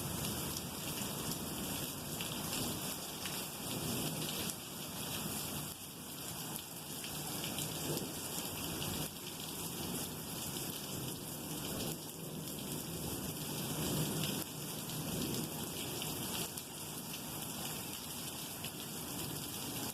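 Steady thunderstorm rain falling, a constant hiss of many small drop impacts.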